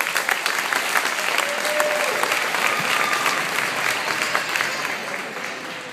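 Audience applauding, with a few voices calling out; the clapping starts loudly and fades toward the end.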